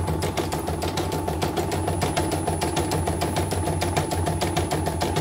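CNY portable embroidery machine stitching: the needle strikes in a fast, even rhythm over a steady motor hum. The missing bobbin case has been fitted, and the machine is running without fault.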